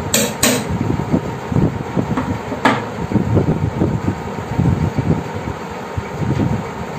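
A hammer tapping a steel punch against a metal drawer channel to start screw holes in the wardrobe's wooden side: two quick sharp taps at the start and a third about two and a half seconds in. A low, uneven rumble runs underneath.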